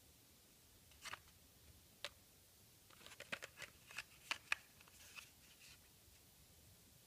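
Clear plastic blister packaging on a cardboard backing card crackling and clicking as it is handled and turned over. Two single clicks come first, then a quick run of crinkles and clicks in the middle.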